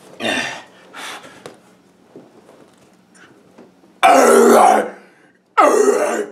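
A man's voice: two short strained grunts, then two loud, raspy gasping yells, the first about four seconds in and the second near the end.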